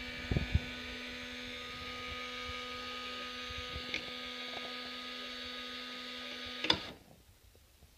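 Small electric gear motor of an automatic chicken coop door opener whirring steadily as it reels in the string and lifts the flap door, with a couple of knocks just after the start. It cuts off with a click near the end as the motor is unplugged to stop the door at the wanted height.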